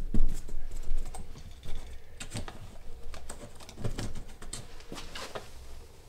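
Fingers tapping on thin wood wall paneling in a run of irregular light taps, hunting for a stud by sound. The taps are louder and closer together in the first couple of seconds.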